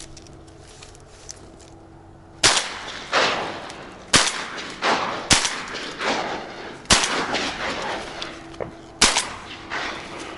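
Shotgun fired five times in quick succession, one to two seconds apart, each shot followed by a rolling echo.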